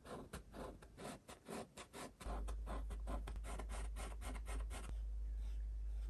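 Paintbrush working water-soluble oil paint in quick scratchy strokes, several a second, that stop about five seconds in. A steady low hum comes in about two seconds in and stays.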